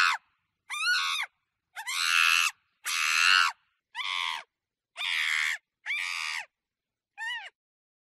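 Monkey screaming: a run of about eight short, harsh screams, each under a second, with brief silences between them. Several calls rise and fall in pitch.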